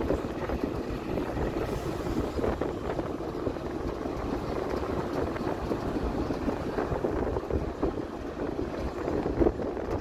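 Wind rushing and buffeting over the microphone with road noise from a moving vehicle, a steady rushing sound that surges a little now and then.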